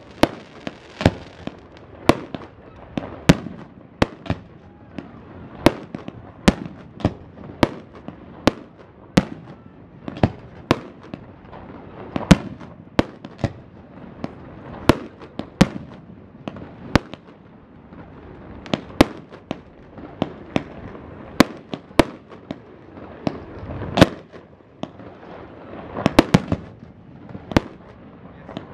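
Aerial fireworks display: an irregular, continuous series of sharp bangs from bursting shells, roughly one or two a second, with a noisy haze between them.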